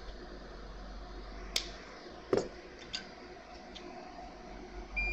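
Sharp clicks and taps of tools being handled at a soldering bench, three or four of them a second or so apart, over a steady low hum. A short high beep sounds near the end.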